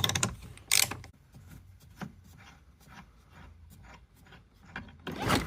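Small handling sounds of tools and loose parts: scattered light clicks and rubbing, with a sharp clack about three-quarters of a second in and a louder scrape near the end.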